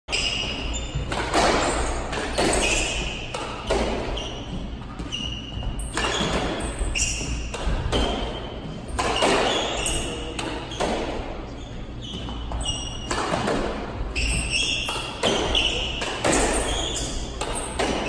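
Doubles squash rally: the hard rubber ball cracks off racket strings and smacks against the court walls and floor in an irregular run of sharp hits, each with a short ring. Short squeaks of court shoes on the hardwood floor come between the hits.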